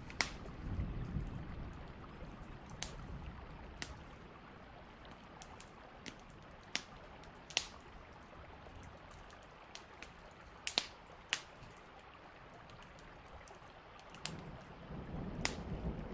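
Steady rain ambience with scattered sharp ticks and pops, a low thunder rumble dying away in the first two seconds and another rumble building near the end.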